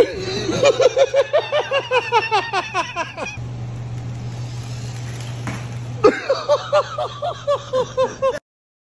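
Hearty laughter in two runs of quick, high-pitched 'ha-ha-ha' pulses, about five a second, over a steady low hum; the sound cuts off abruptly near the end.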